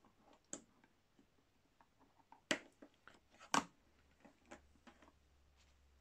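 Multimeter test leads and alligator clips being handled: scattered small clicks and knocks, two louder knocks about two and a half and three and a half seconds in.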